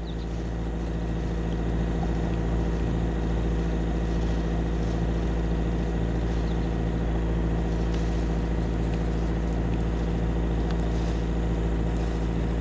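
A boat's engine running steadily, a constant deep drone with no change in speed.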